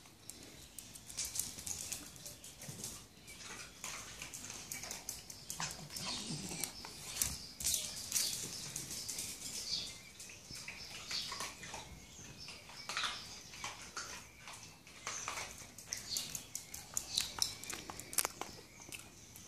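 A dog moving about on a tiled floor: a busy run of quick clicks and scuffles.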